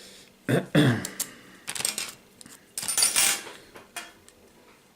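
Metal clinking and rattling from a just-opened padlock and lock picks being handled, in several separate bursts with a few small clicks near the end.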